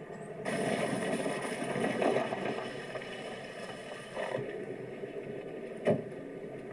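Small car driving up a rough gravel track towing a dirt-bike trailer: engine running and tyres on loose stones, a steady noisy rumble that starts suddenly and cuts off sharply after about four seconds, heard as old camcorder tape played back through a TV. A single sharp click near the end.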